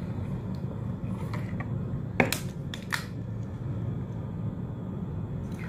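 A few sharp plastic clicks and knocks from a tripod selfie stick and its phone clamp being handled, the loudest about two seconds in, over a steady low hum.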